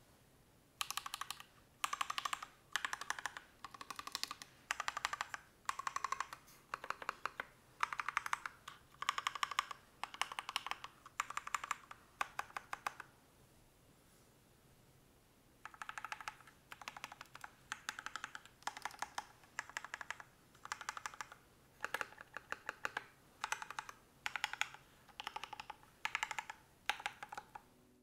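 Typing on a Matrix Noah mechanical keyboard with Luminous switches, an aluminium plate and PBT keycaps, the keystrokes clattering in short runs about one a second. First comes the switches' stock sound, then, after a pause of about two seconds, the same switches lubed with Krytox 205g0 and fitted with switch films.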